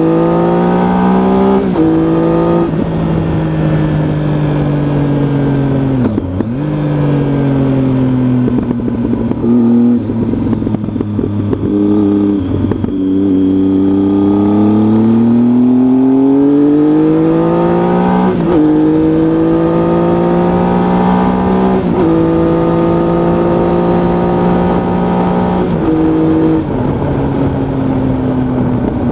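Triumph Tiger motorcycle engine pulling through the gears on the move. The pitch climbs under acceleration and drops sharply at each of several upshifts. Midway it eases off and falls in pitch before accelerating again.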